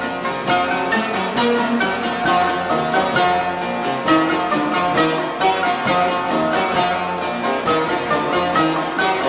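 Ensemble of bağlamas (Turkish long-necked saz lutes) playing a Turkish folk tune together, with fast, even plucked notes.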